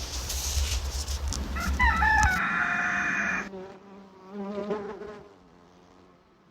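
Recorded nature sounds: crackling over a low rumble, then a loud crowing call about two seconds in, then a wavering insect-like buzz that fades out.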